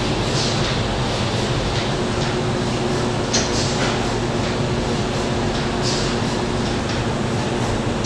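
Automated stator-production machinery running: a steady mechanical hum with a couple of held low tones, and a few short hisses over it.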